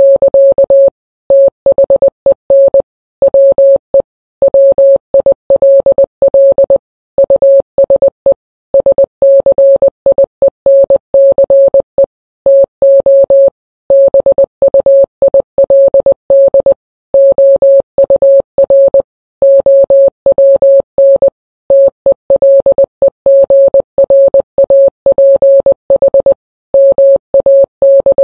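Morse code sent as a single steady mid-pitched beep, keyed on and off in short dits and long dahs, with brief pauses between letters and longer gaps between words, spelling out a coded message.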